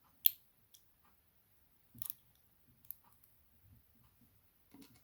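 A few sharp, small clicks spaced about a second apart, the loudest near the start: tweezers and pins clicking against the disassembled Evva DPS lock cylinder as its spool pins are picked out.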